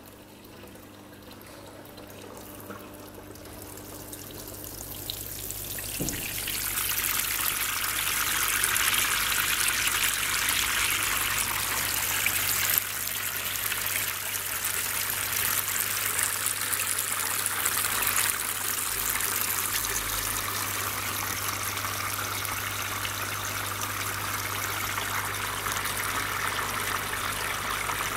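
Artificial rain from a rain simulator falling as many water drops and streams onto a Plexiglas box and the water in it, building up over the first several seconds and then running steadily. A low steady hum runs underneath.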